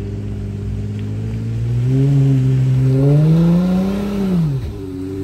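An off-road 4x4's engine revs, its pitch climbing steadily for about two seconds and then dropping away sharply near the end. Under it, another engine idles steadily.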